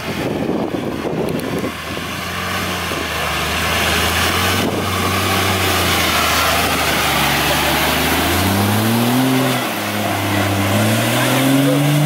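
Off-road 4x4 engine running steadily, then revving up twice near the end, its pitch climbing each time.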